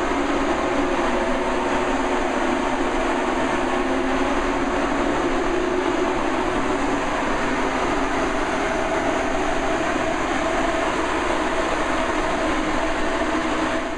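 Large drum-style ventilation fan set in a window, running steadily: an even rush of air with a low hum.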